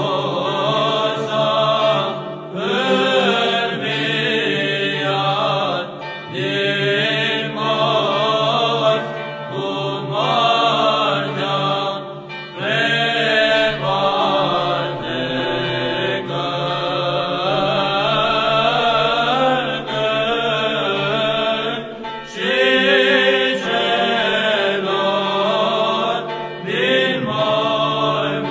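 Orthodox Easter chant: sung phrases, each a couple of seconds long, over a steady low held drone.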